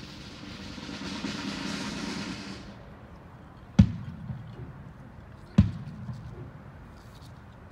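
A rushing noise for the first two and a half seconds or so, then two sharp, loud thumps about two seconds apart, each trailing a short low ring.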